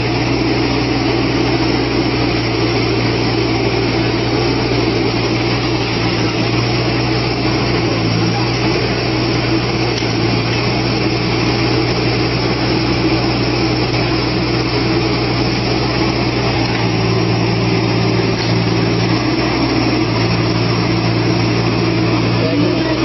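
A machine's engine running steadily with a low hum, holding an even speed.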